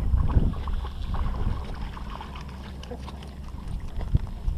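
Small dogs paddling and splashing in shallow lake water at the shore, a scatter of short splashes over a steady low rumble, with one sharp knock shortly before the end.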